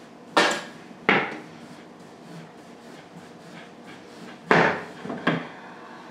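A kitchen knife being forced through a hard, woody cassava root on a wooden cutting board, giving four sharp knocks: two near the start and two about a second before the end.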